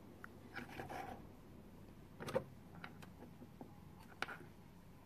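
Small plastic toy figurines being handled and set down on a tabletop: a few light taps and rubbing sounds, the clearest about two seconds in and another a little after four seconds.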